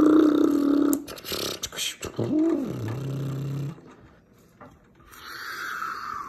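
A person making vocal sound effects with the mouth: a loud held note for about a second, then a hum that swoops up and down and settles into a low buzz, and near the end a breathy whoosh that falls in pitch.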